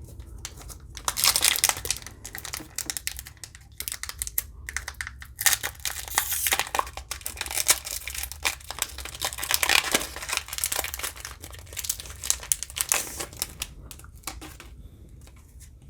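Foil booster pack crinkling and tearing as it is opened by hand, in irregular bursts of crackling that die down near the end.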